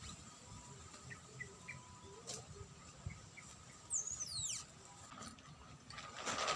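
Bird calls over faint outdoor background: a few short soft chirps early on, then a quick high whistle sliding steeply down about four seconds in.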